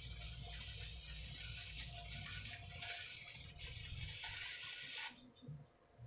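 A machine running with a steady hissing rattle over a low rumble, cutting off abruptly about five seconds in.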